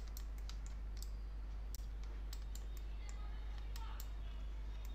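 Irregular light clicks at a computer, about a dozen, scattered unevenly, over a steady low hum.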